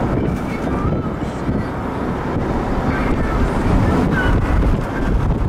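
Steady road and engine noise of a moving car, heard from inside, with wind buffeting the microphone.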